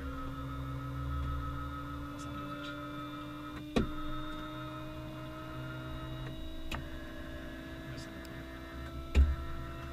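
Tecnam P2008's electric flap motor running during a preflight flap check, over a steady electrical hum whose pitch slowly rises. Sharp clicks come a few seconds apart, the loudest near the end.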